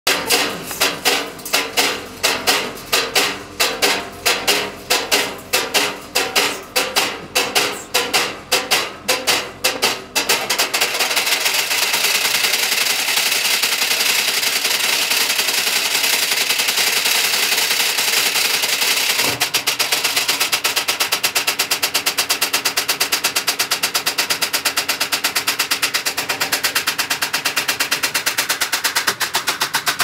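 Thirty-year-old washing machine spinning with a load of stones in its drum. At first the stones bang at a steady beat, about two or three knocks a second. About ten seconds in, the drum speeds up and the knocks run together into a fast, continuous clattering rattle.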